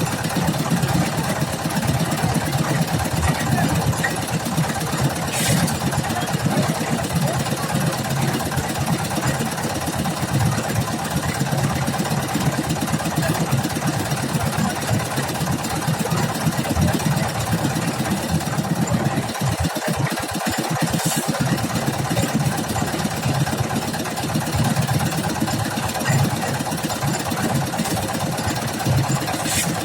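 A construction machine's engine running steadily with a rapid, even pulsing, its low rumble briefly dropping out about twenty seconds in.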